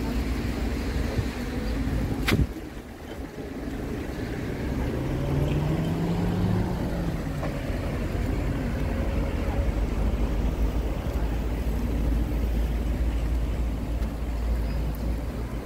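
Outdoor traffic: a steady low rumble of passing vehicles, with one engine going by about five seconds in, its pitch rising and then falling. A single sharp click or knock sounds about two seconds in.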